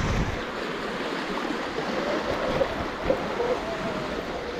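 Steady wind rush on the microphone, with tyre and drivetrain noise from a Sur-Ron X electric dirt bike riding over a rough trail. A low thump at the start and a short knock about three seconds in.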